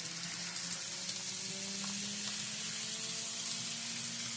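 N scale Kato SD40-2 model diesel locomotive running on the track, its small electric motor whining and slowly rising in pitch as it speeds up, over a steady high hiss.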